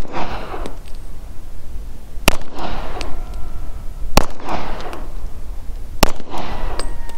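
Three pistol shots from a Rock Island handgun, fired slowly about two seconds apart, each followed by a short echo.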